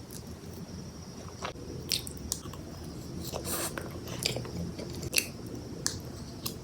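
A person eating close to the microphone: biting and chewing, with irregular sharp clicks and one longer, noisier mouth sound about three and a half seconds in.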